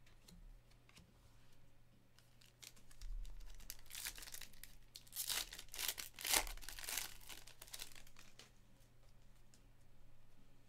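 Foil wrapper of a Chronicles Draft Picks basketball card pack being torn open and crinkled: a run of crackling rips from about three to eight seconds in, loudest in the middle. After that come quieter rustles and taps as the cards are handled.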